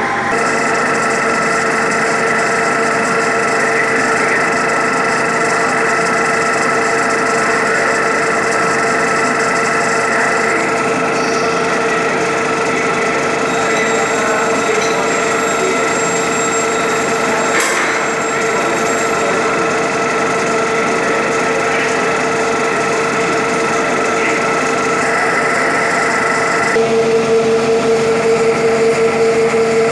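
Engine lathe running with its chuck spinning: a steady mechanical hum and gear whine. There is a single sharp click about halfway through, and a few seconds before the end the hum changes pitch and grows slightly louder.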